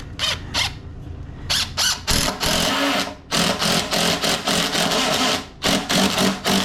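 Power drill running in several short bursts, then two longer runs of a second or two, driving screws into the wooden frame.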